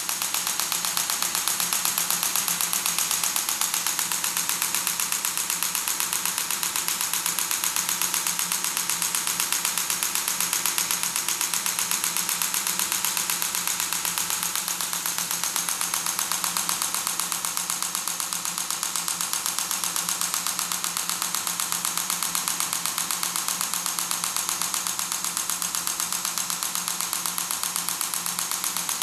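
Radial shockwave therapy handpiece firing a rapid, even train of sharp clicks as it delivers shock pulses through gel into the calf. The pulse rate and level hold steady throughout.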